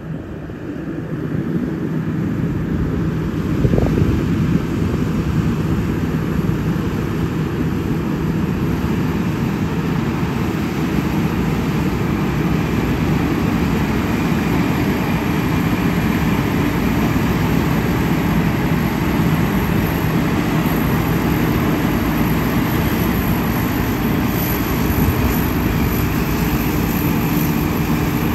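Custom-built rice combine harvester cutting and threshing rice: a steady drone from its engine and threshing machinery. It grows louder over the first few seconds as the machine comes closer, then holds steady.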